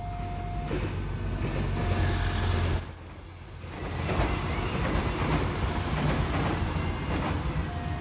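Passenger train passing close by: heavy rumble and rattling of the cars running over the rails, with a short drop in loudness about three seconds in. A level-crossing warning tone sounds on and off in the first second and comes back at the end.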